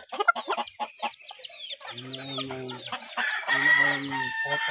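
Chickens in wooden coops calling: a quick run of short, high peeps that each fall in pitch, with two longer, lower drawn-out calls about two and three and a half seconds in.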